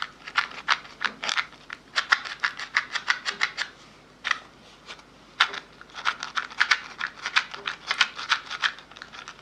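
ASMR mouth sounds recorded close up: quick, irregular mouth clicks and smacks, several a second, with a short pause about four seconds in.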